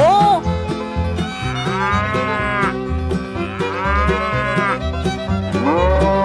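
Cow mooing: four long moos, each rising and then falling in pitch, about two seconds apart. Background music with a steady beat plays under them.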